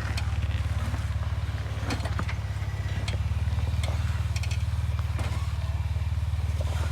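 Off-road 4x4's engine running steadily at low revs with a fast, even throb, while scattered sharp clicks and knocks sound now and then.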